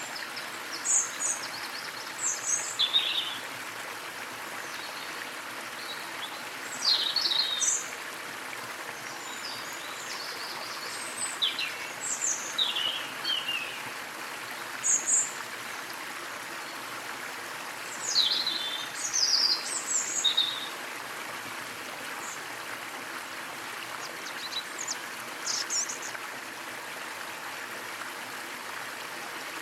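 Small waterfall splashing steadily, with birds calling over it in short, high, falling chirps that come in clusters every few seconds.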